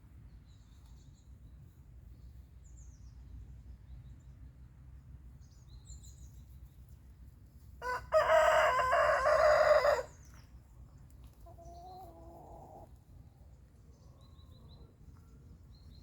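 Rooster crowing once, a loud cock-a-doodle-doo about two seconds long, roughly halfway through. A fainter, lower call follows about a second later, with faint high bird chirps scattered throughout.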